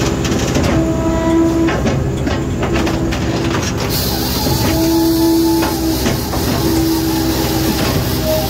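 A Posch K-650 Vario Mobile firewood processor running under load. A steady machine hum carries a pitched whine that comes and goes about every two seconds, with knocks from the logs early on. From about four seconds in there is a hiss as the saw cuts through a log.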